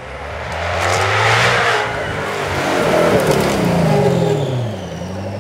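Supercar engine accelerating hard past, swelling loud twice with its pitch climbing, then dropping in pitch as the car goes by.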